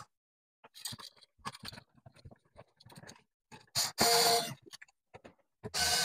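Cordless drill/driver whirring briefly as it drives a switch's mounting screw into its box, once about four seconds in and again starting near the end. Light clicks and scrapes of the switch and wires being handled in between.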